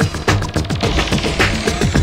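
Electronic dance music with a steady, fast beat, played from vinyl records in a DJ mix.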